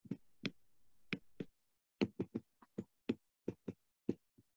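Pen stylus tapping on a tablet while handwriting: a dozen or so short, sharp taps at an uneven pace, with near silence between them.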